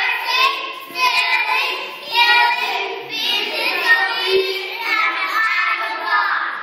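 A small group of young children singing together into a microphone, in short phrases about a second long.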